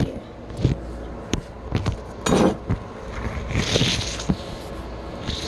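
Scattered knocks, clicks and scrapes of things being handled, with a louder scrape about two seconds in and a short hiss past the middle.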